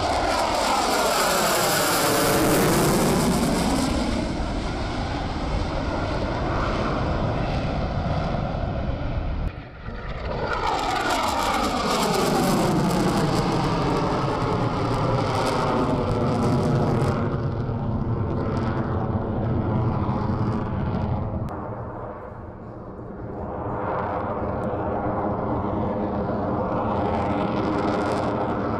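F-22 Raptor's twin jet engines loud in two passes, each with a whooshing sweep that falls then rises as the fighter approaches and pulls away. The noise breaks off briefly about ten seconds in and eases off for a moment near 23 seconds.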